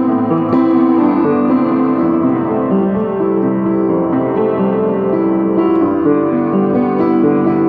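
Upright piano playing a melody over sustained chords, kept to the few keys of an otherwise out-of-tune piano that are still in tune.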